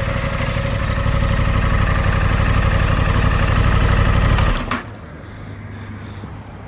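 Aprilia Tuono 660's parallel-twin engine idling steadily, then stopping suddenly about four and a half seconds in.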